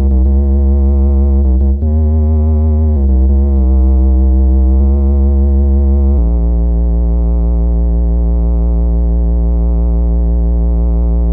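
Synthesizer playing low bass notes, changing pitch a few times and then holding one long note whose tone wavers slowly, about once a second.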